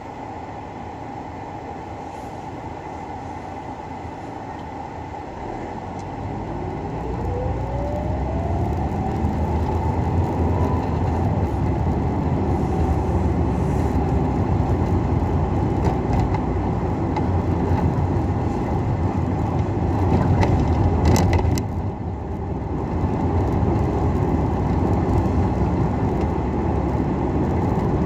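Car interior road noise: low rumble from the engine and tyres that grows louder about six seconds in as the car picks up speed, with a rising whine. Briefly louder about twenty seconds in.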